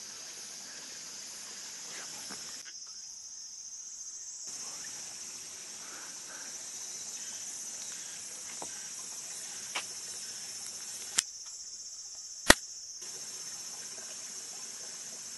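A chorus of summer insects makes a steady, high-pitched drone. A few sharp clicks break in during the second half; the loudest comes about twelve seconds in.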